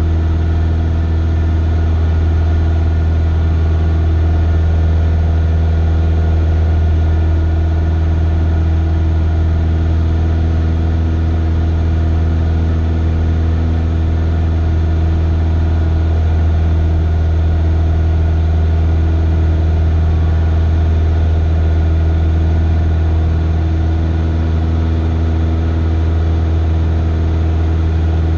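Cessna 172's piston engine and propeller droning steadily in flight, heard from inside the cockpit, with an even low hum that holds its pitch and loudness throughout.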